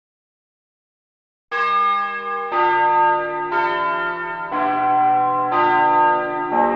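Silence, then about a second and a half in, bells begin to strike about once a second, six strikes in all, each ringing on under the next, changing pitch from stroke to stroke like church bells: the bell intro of a recorded children's Christmas song.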